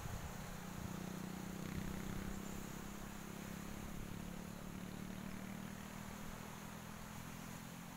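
Distant vehicle engine, a steady low hum that slowly fades away.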